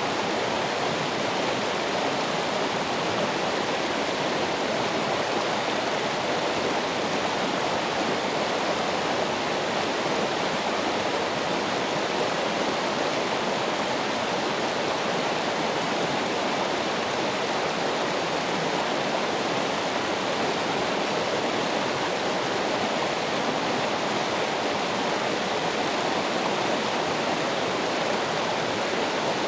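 Flowing water in a steady, unbroken rush, such as a stream or a small waterfall, with no change in level.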